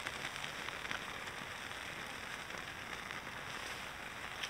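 Small campfire of fine dry twigs crackling as it catches, a dense patter of small pops and ticks over a steady hiss.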